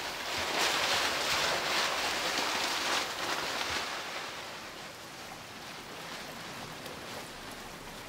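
A large sheet of crinkled white paper being handled and crumpled, a dense rustling crackle that is loudest for the first three or four seconds and then grows softer.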